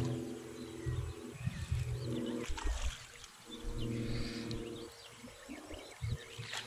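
Small birds chirping repeatedly over a low droning hum that cuts out and comes back several times.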